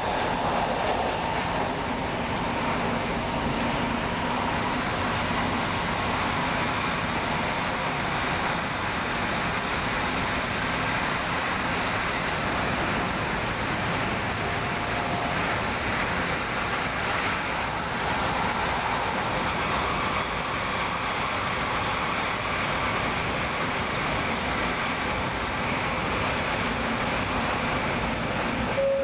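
X10 electric multiple unit running along the line, heard from inside the carriage: a steady rumble of wheels and running gear with an even noise of the train under way.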